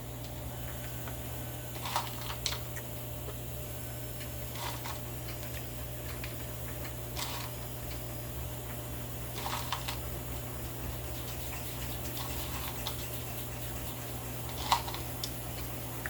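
Light, scattered taps and clicks of chopped bacon being sprinkled by hand into potato skins on parchment paper, a few at a time with pauses between, over a steady low hum.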